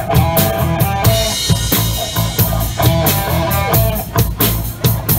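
Live blues-rock band playing an instrumental break: drum kit keeping a steady beat with a cymbal crash about a second in, under an electric guitar playing bent notes.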